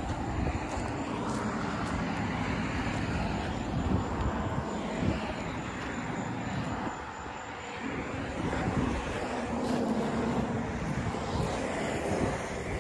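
Large diesel engine of heavy earthmoving equipment running steadily, a continuous drone.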